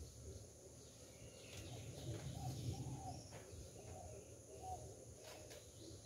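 Faint outdoor morning ambience: a steady high insect buzz over a low rumble, with a few short bird calls and a couple of soft clicks in the middle.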